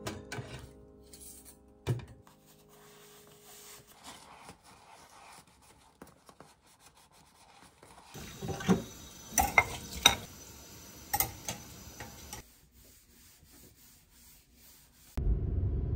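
Kitchen washing-up: a stainless wire rack clinks against its metal tray, with one sharp knock about two seconds in. Soft rubbing follows, then a louder run of clinks and clatters of dishes at a stainless sink in the middle, and quieter wiping. A low steady rumble starts suddenly just before the end.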